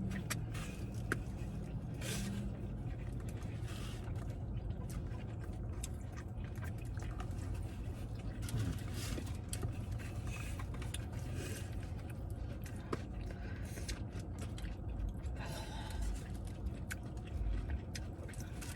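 People chewing food, with scattered small clicks and rustles over a steady low hum.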